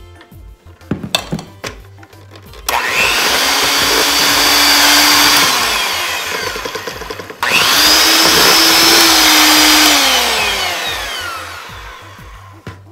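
Electric hand mixer beating a cream cheese and powdered sugar batter. A few light knocks come first; then the motor starts about two and a half seconds in, its whine falls in pitch as it slows, cuts off suddenly near the middle and starts straight back up, then slows and fades near the end.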